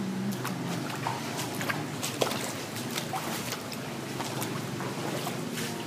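Shallow floodwater on a house floor sloshing and splashing in scattered strokes as someone wades through it, the sharpest splash a little over two seconds in, over a steady low hum.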